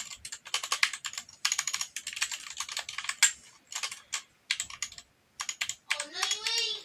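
GK61 60% mechanical keyboard with pudding keycaps, its keys tapped in quick runs of clacking keystrokes, with a short pause about five seconds in. A brief voice-like sound near the end.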